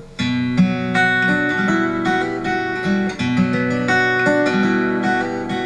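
Acoustic guitar fingerpicked between sung verses, each note plucked separately at a steady walking pace.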